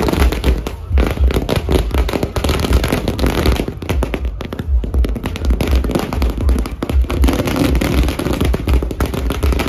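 A long string of firecrackers going off in a rapid, unbroken chain of sharp cracks.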